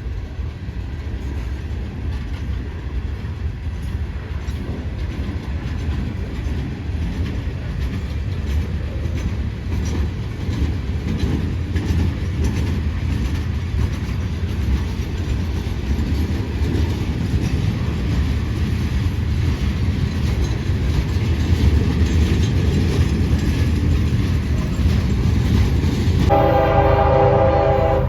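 Freight train rolling by with a steady low rumble of cars on the rails that slowly grows louder. Near the end a diesel locomotive horn sounds a chord, breaks off briefly and starts again.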